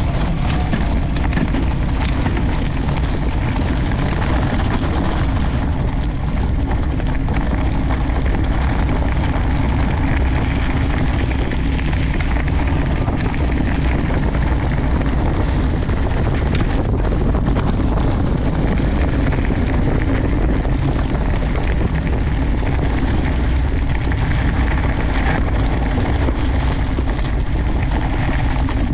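Steady rush of wind buffeting the camera microphone, with the knobby tyres of an electric mountain bike rolling over gravel as it is ridden at speed.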